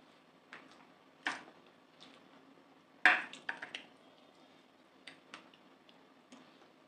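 Sounds of eating with the fingers from a banana leaf: scattered sharp clicks and wet smacks of hand and mouth working the rice and curry. The loudest comes about three seconds in, followed quickly by a few smaller ones.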